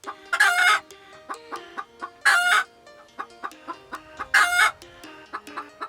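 Chickens calling: three loud, short calls about two seconds apart, with softer clucks and notes between them.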